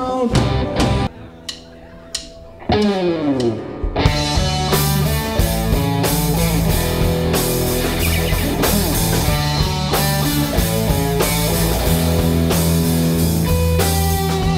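Live rock band playing: a quieter guitar passage with sliding notes, then about four seconds in the drum kit and bass come in and the full band plays on with electric guitar over a steady beat.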